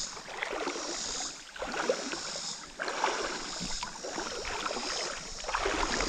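Footsteps wading through shallow creek water, sloshing and splashing with each stride, about one step a second.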